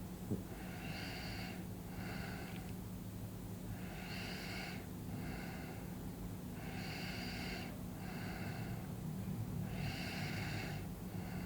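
A person asleep, breathing slowly and evenly, about one breath every three seconds. Each breath is a longer sound followed by a shorter one.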